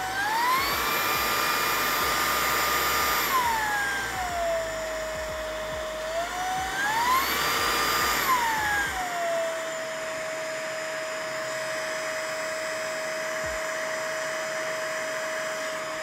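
Oraimo cordless stick vacuum's 380 W brushless motor running, its whine stepping between suction settings as the plus and minus buttons are pressed. It rises to a higher speed within the first second and drops to a lower one about four seconds in. It climbs again around six seconds, then settles at the lower speed from about nine seconds on.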